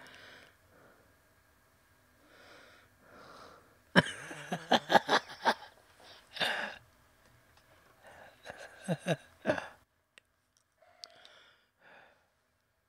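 A person's breathy non-speech vocal sounds: sighs and exhalations, with a louder run of short bursts about four seconds in and a few more before it fades out near the end.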